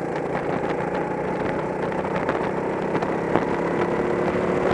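Go-kart engine running steadily under power, heard from the driver's seat, with scattered short clicks over it.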